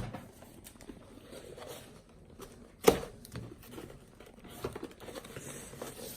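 A cardboard LEGO box being opened by hand: quiet rustling and scraping of cardboard and packaging, with small clicks and one sharp snap about three seconds in.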